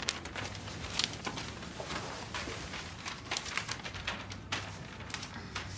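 Irregular light clicks and rustles of small objects being handled and moved about, over a faint room background.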